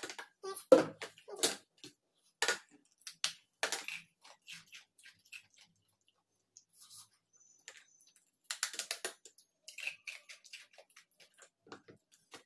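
Stone nora (the roller of a sil-nora grinding stone) striking and crushing ice in a brass plate: a series of sharp knocks over the first four seconds. Later comes a quick cluster of crunching clicks.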